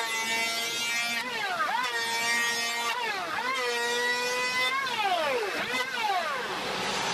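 Electric hand planer running across a wooden board. Its motor whine dips in pitch and climbs back up about four times.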